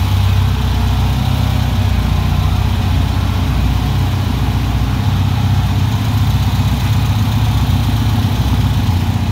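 A vehicle engine idling steadily, with a loud, even low rumble.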